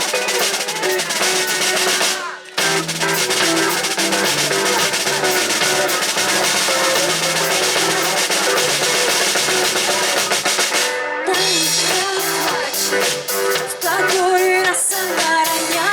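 Live band playing an instrumental passage driven by a drum kit with bass and guitar. The music cuts out briefly about two seconds in, comes back in full, and breaks again for a moment near eleven seconds.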